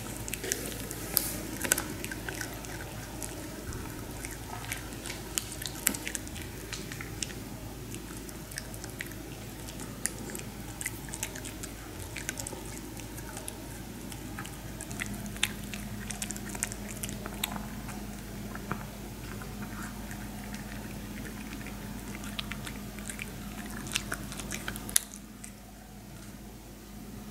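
Maltese dog chewing a dried pig-ear slice, with many sharp crunches and wet chewing that die away near the end.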